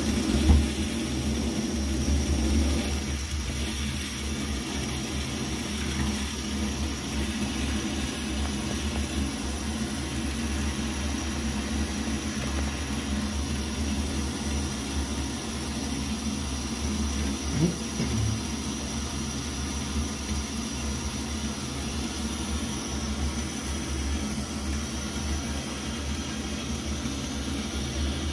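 Coleman 533 pressurized unleaded-gasoline camp stove burner burning steadily, lit by a torch lighter at the start. There is a short sharp sound about half a second in and a brief one just past the middle.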